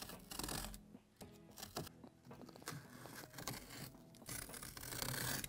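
Sharp trimming knife drawn through the felt backing of an acoustic wood slat panel in several short scraping cuts, the longest near the end, with quiet music underneath.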